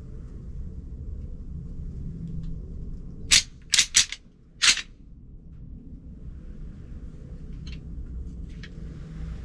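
Deer rattling call clacked together in a quick cluster of four sharp clacks about three and a half seconds in, imitating two bucks fighting to draw in a whitetail buck.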